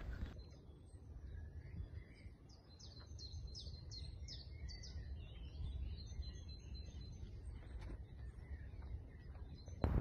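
A small songbird singing: a run of quick, high, falling chirps between about three and six seconds in, then a few thinner notes, over a low rumble.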